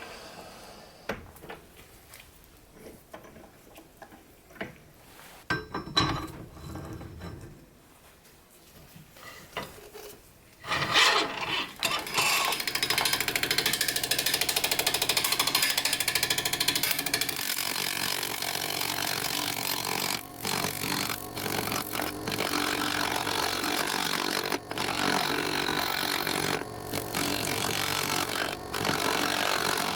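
Scattered clicks and knocks of tools and wood being handled, then, about a third of the way in, a woodworking power tool starts cutting wood and keeps on steadily, with a few short breaks.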